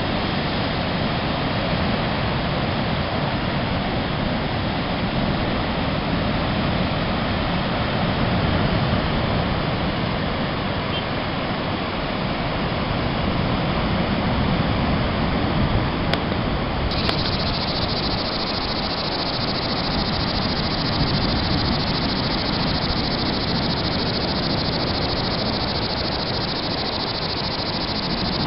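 Loud, steady rushing of breaking sea surf and swollen floodwater.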